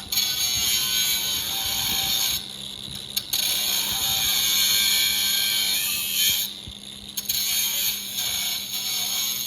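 A cut-off disc cutting through the sheet-metal strut tower in long passes: a loud, high-pitched grinding hiss. It breaks off briefly twice, about two and a half and six and a half seconds in.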